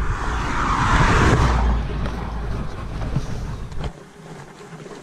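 Low rumble of a pickup truck with a loud rush of noise over the first two seconds. The rumble cuts off abruptly about four seconds in, leaving quieter sound with a few faint clicks.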